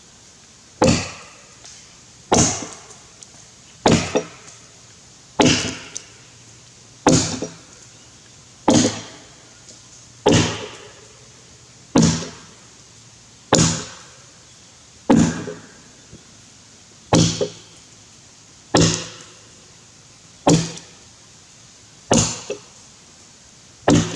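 Axe chopping into a Grey Gum log, bucking it by hand: sharp, even strikes of the steel head biting into the wood, about one every second and a half, each with a short ringing decay.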